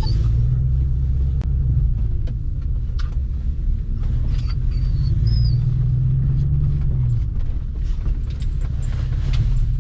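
Loud, steady low rumble, with a few faint high chirps about halfway through.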